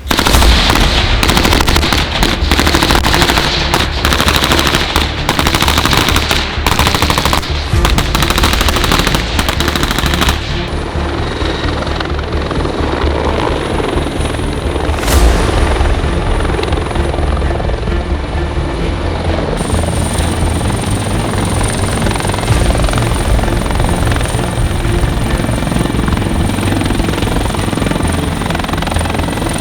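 Helicopter running, with a dense, fast rattle for about the first ten seconds, then a steadier rotor-and-engine sound with a faint high whine.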